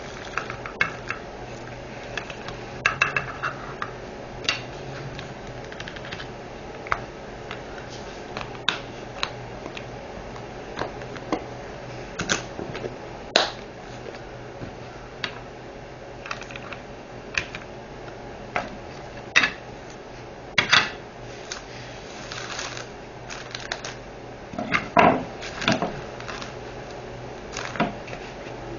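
Scattered light clicks and short rattles of small plastic items being handled: diamond painting resin drills and their plastic trays and storage containers.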